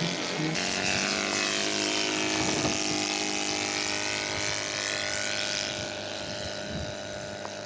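Propeller-driven radio-controlled scale model airplane engine running steadily as the plane flies past, the sound sweeping as it goes by and fading after about six seconds.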